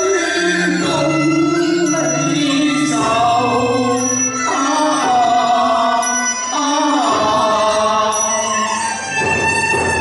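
Cantonese opera song with live traditional Chinese instrumental accompaniment, a continuous melody of held, bending notes.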